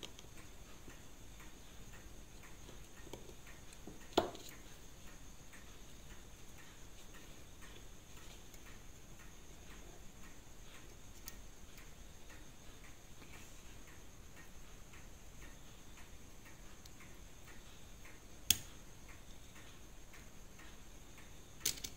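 Steel tweezers working on a Seiko 5 automatic watch movement: faint rapid ticking and small metal clicks throughout, with a few sharper clicks, about four seconds in and twice near the end.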